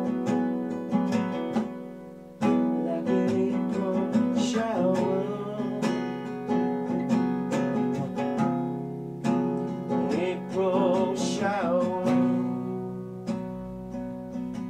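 Sunburst acoustic guitar strummed in steady chords that ring between strokes. The sound fades about two seconds in before a loud fresh strum.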